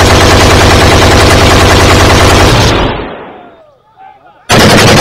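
Automatic gunfire, a machine-gun sound effect laid over the reenactment: a long rapid burst for nearly three seconds that dies away, then another burst starting about a second before the end. Faint shouting voices come through in the gap between bursts.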